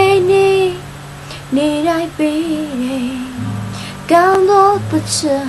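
A song: a high voice sings short held phrases over a steady low accompaniment.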